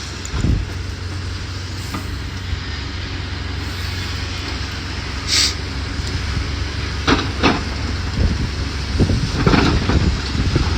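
Excavator's diesel engine running steadily on a demolition site, with a short hiss about five seconds in and a run of knocks and clanks from about seven seconds on.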